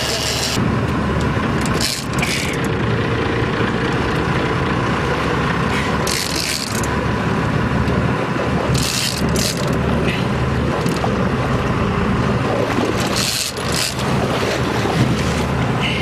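A sportfishing boat's engine running steadily, with the mechanical winding and clicking of a big-game trolling reel being cranked in against a hooked blue marlin.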